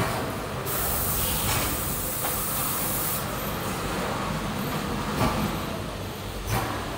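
Detergent powder packing machine running, with a loud hiss lasting about two and a half seconds starting just under a second in, then two short knocks later on.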